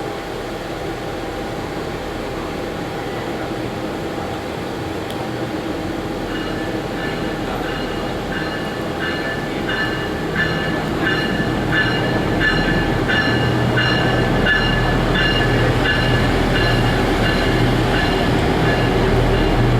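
A train running, its low rumble slowly growing louder, with a high tone pulsing evenly from about six seconds in.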